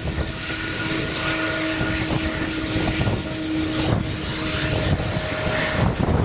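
Jet airliner's engines heard as a steady hum with a few held tones over wind buffeting the microphone; the tones stop near the end.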